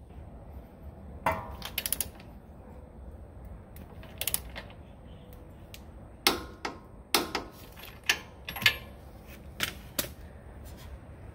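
Ratcheting torque wrench tightening the lower shock bolt on a truck's front suspension to 70 foot-pounds: irregular sharp metallic clicks, with a quick run of them about two seconds in and others spread through.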